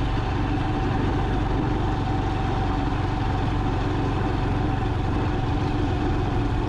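A vehicle being driven, giving a steady low engine hum with road noise and no change in pace.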